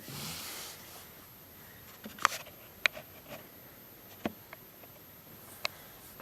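A brief rustle, then a few scattered sharp clicks and knocks of small objects being handled, the loudest about two seconds in.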